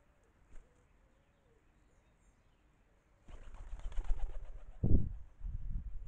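Wood pigeons taking off, wings flapping hard from about three seconds in, with two heavy low thuds as wings beat close to the microphone.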